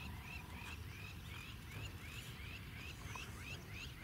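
Frogs calling: a steady series of short, high, upward-sliding chirps, about three a second.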